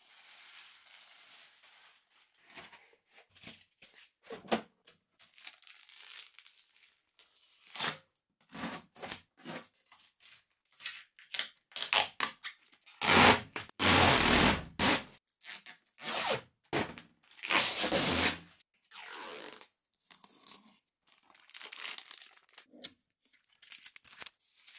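Clear plastic packaging crinkling and protective film tearing as it is peeled off a 3D printer's glass panels, in a run of irregular rustles. The longest and loudest peel comes about halfway through.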